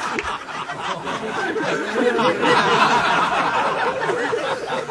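Live audience laughing, many voices overlapping.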